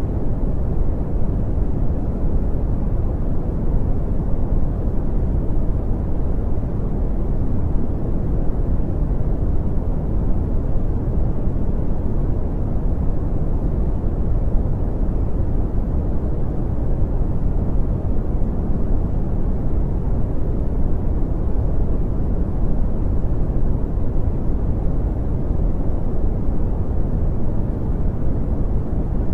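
Brown noise: a steady, deep rumbling hiss, strongest in the low end and falling off toward the highs, unchanging throughout.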